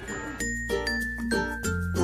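Music: a melody of short, clear notes over a bass line, coming in about half a second in.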